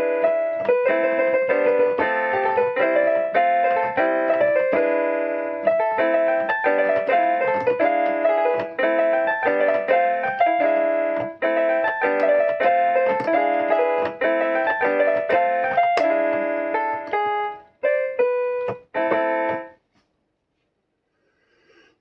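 Inexpensive mini keyboard on a piano voice playing a pop tune's melody over chords. Near the end it plays two short, separate chords, then stops.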